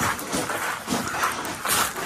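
Footsteps crunching on a loose gravel canyon floor at a walking pace, about two steps a second.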